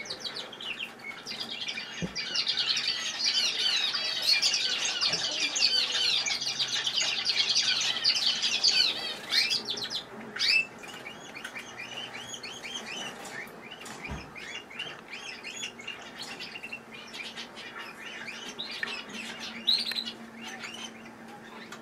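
Male canaries singing: a young male practising its song beside its father. A long, loud run of rapid warbling trills lasts about nine seconds, then the song turns softer and broken.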